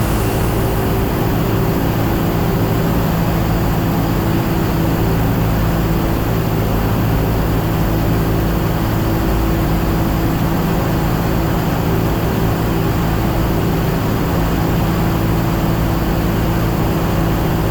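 Light airplane's piston engine and propeller droning steadily, heard inside the cockpit on approach to land.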